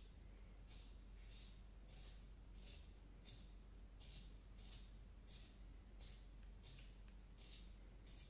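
Wooden Doms pencil being turned in a small handheld pencil sharpener, the blade shaving the wood in quiet, evenly spaced scraping strokes, about one and a half a second, one with each twist.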